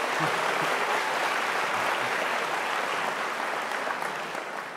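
Audience applauding steadily, slightly quieter near the end.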